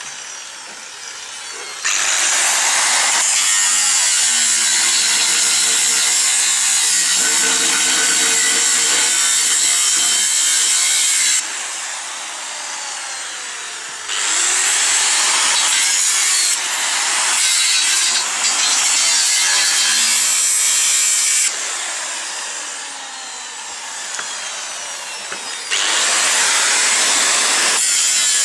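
Angle grinder cutting into 6 mm steel plate in three long passes, the first about nine seconds and the second about seven, with the third starting near the end; between them are quieter stretches.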